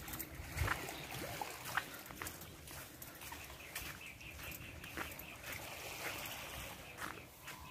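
Footsteps crunching on sand and rocky shore, with small waves lapping at the water's edge. A faint high, pulsing chirr runs through most of it.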